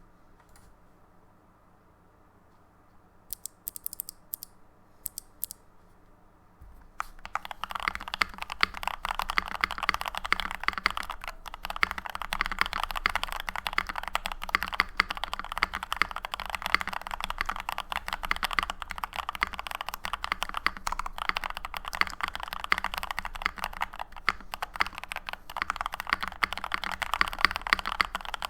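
Typing on a Keychron V1 mechanical keyboard fitted with lubed and filmed NK Dry Black linear switches, a steel plate and PBT keycaps, with tape-modded and poly-filled case. A handful of single keystrokes come a few seconds in, then steady fast typing starts about seven seconds in and keeps going.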